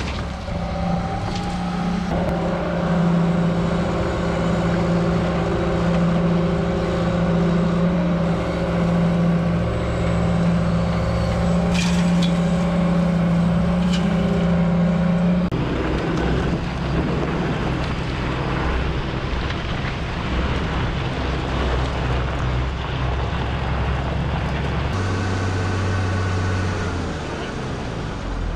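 Heavy equipment diesel engine running under load with a strong steady hum. The sound changes about halfway through, and a lower tone comes in for a couple of seconds near the end.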